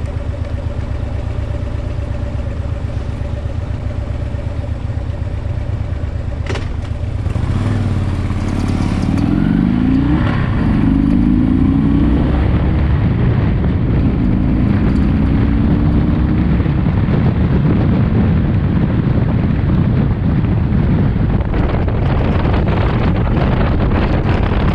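Harley-Davidson Electra Glide's big V-twin engine idling steadily, then, after a single click, pulling away about seven seconds in and rising in pitch twice as it accelerates through the gears. It settles into a steady run, with wind noise building on the microphone near the end.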